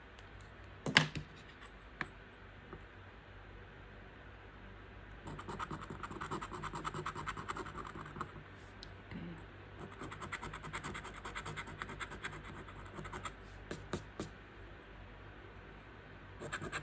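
The coating of a scratch-off lottery ticket being scraped off in fast, even strokes, in two spells of about three seconds each, starting about five and about ten seconds in. There is a sharp tap about a second in.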